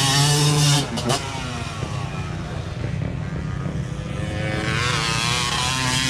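A motor vehicle engine revving: it rises at the start, drops off abruptly about a second in, runs lower through the middle, then revs up again near the end.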